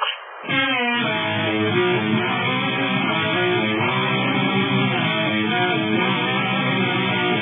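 Background music led by a strummed guitar, starting about half a second in.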